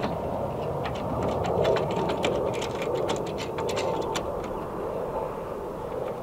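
Ratchet wrench clicking in quick runs as the clamp hardware of a boltless ladder mount is tightened, starting about a second in and stopping past four seconds. A steady background rumble lies underneath.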